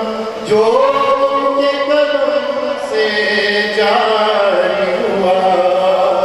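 A man sings a devotional Urdu song into a microphone, holding long notes that slide up and down in pitch, with a fresh phrase beginning about half a second in.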